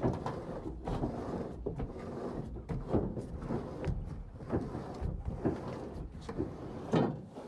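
Mechanical outboard steering helm and push-pull steering cable being turned back and forth, with grinding, scraping strokes about once a second. The helm sounds a little crunchy because it has been underwater.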